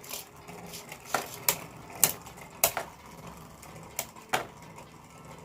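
Two Beyblade Burst spinning tops, Revive Phoenix and Triumph Dragon, spinning in a stadium and clashing. About seven sharp plastic-and-metal clicks come at irregular intervals as the tops strike each other and the stadium wall.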